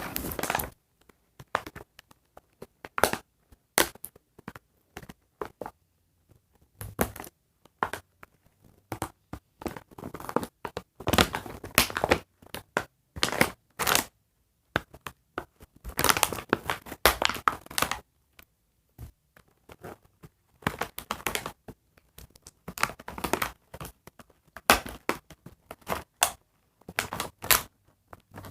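Toy packaging being handled, crinkled and torn as a doll is freed from its box: irregular bursts of crackling and rustling with short pauses between them.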